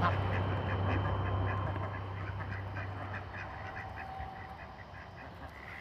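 A flock of white domestic ducks quacking in quick, short, overlapping calls, a few a second, as they crowd in for food. The calls grow fainter near the end, with a low steady hum underneath.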